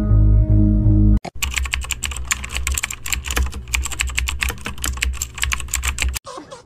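Instrumental music for about a second, cut off sharply. It is followed by about five seconds of fast, dense clattering of computer-keyboard typing, which stops abruptly near the end.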